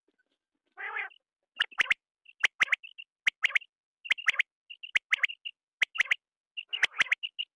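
Quail calling: a short rasping note about a second in, then quick groups of short high notes with sharp clicks, repeated over and over.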